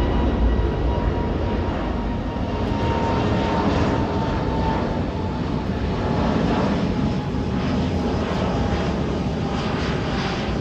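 Rolls-Royce Trent XWB jet engines of a Japan Airlines Airbus A350 at takeoff thrust as it climbs away: a steady roar with a faint whine that slowly drops in pitch.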